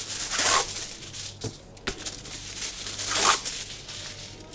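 Aluminium foil being crinkled and torn as a lid: two loud rustling rushes, about half a second in and again about three seconds in, with small crackles between.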